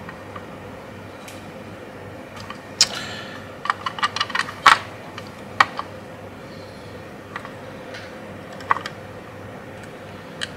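Sharp small clicks and taps of hand tools and wire on a circuit board, bunched in a quick flurry from about three to six seconds in, while a power lead is being soldered on. A steady low hum runs underneath.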